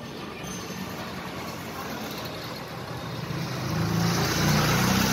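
Street traffic noise, with a motor vehicle's engine growing louder and closer from about three seconds in, its low rumble loudest near the end.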